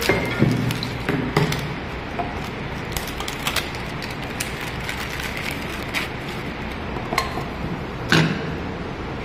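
Scattered clicks and knocks of plastic surgical-light parts being handled and fitted together during assembly, over a steady background hiss. The loudest knock comes near the end.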